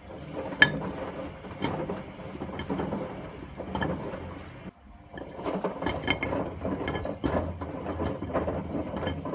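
Hotpoint front-loading washing machine drum tumbling with bars of soap inside, the hard bars knocking and clattering irregularly against the drum over the hum of the machine. The knocking stops for a moment about halfway through, then resumes.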